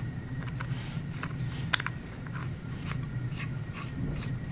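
Light scattered clicks and scrapes of a half-inch metal pipe being twisted by hand into a round pipe flange, over a low steady hum.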